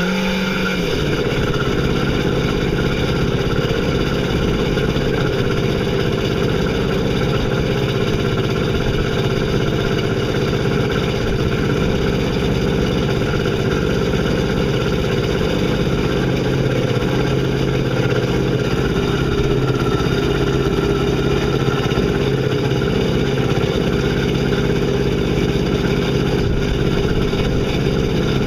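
Yamaha SX230's four-stroke marine engine running on the trailer on a garden-hose flush connection, drawing antifreeze through its cooling system to winterize it. It revs a little higher at the start, settles to a steady idle within about a second, and then holds that idle.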